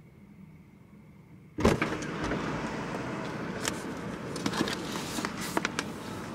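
A car door unlatches and swings open about a second and a half in, letting in the outside street noise. Then come rustling and light knocks as a plastic laundry basket of USPS mailers is lifted off the seat.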